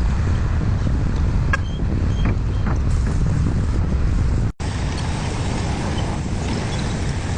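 Excavator engine running steadily, mixed with heavy wind noise on the microphone. The sound cuts out for a moment about four and a half seconds in.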